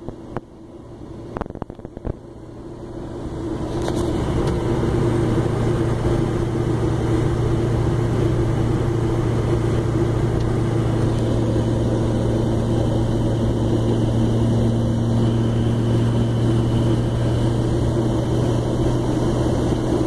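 In-cab drone of a 2005 Chevrolet Silverado's 6.6-litre LLY Duramax V8 turbo-diesel cruising under way, mixed with road noise. It grows louder over the first few seconds, then holds a steady low hum.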